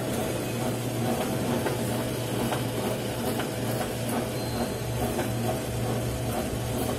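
Canon imageRUNNER office copier running while it prints a job: a steady mechanical hum with faint light clicks as sheets feed through and drop into the output tray.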